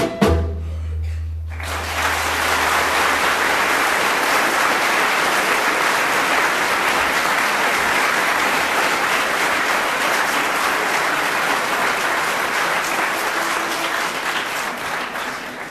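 The song's last low note dies away. About a second and a half in, an audience breaks into applause that carries on steadily and fades out near the end.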